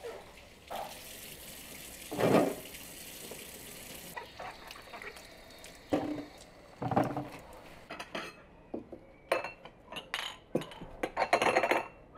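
Water running from a tap for the first few seconds, with a few knocks, then a quick run of clinks and clatter of dishes and cutlery.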